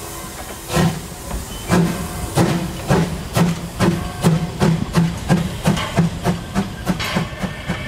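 750 mm narrow-gauge steam tank locomotive starting away with a train: its exhaust chuffs begin just under a second in at about one a second and quicken to about three a second as it gathers speed, over a steam hiss.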